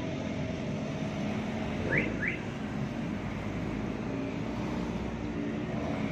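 Road traffic passing on a multi-lane road: car and motorcycle engines running with tyre noise. Two short rising chirps come close together about two seconds in.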